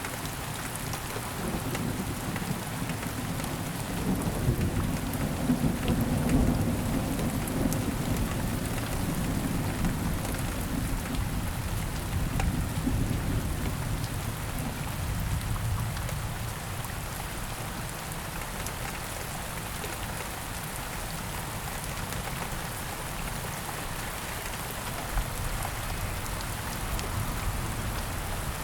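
Steady rain falling, with a low rumble of thunder that swells a few seconds in and dies away by about halfway, leaving only the rain.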